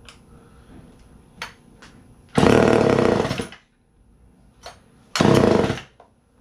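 Poulan 306A two-stroke chainsaw engine catching and running for about a second before dying, then catching again briefly near the end: short sputtering starts on a freshly rebuilt, not yet tuned carburetor. A few faint clicks come before each start.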